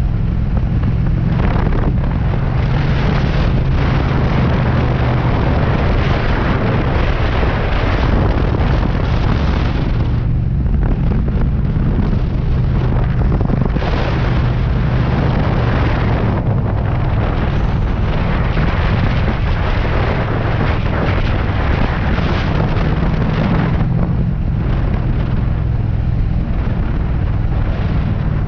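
Triumph Street Cup's 900 cc parallel-twin engine and exhaust running steadily at road speed, under heavy wind noise on the microphone. The sound dips briefly about three times.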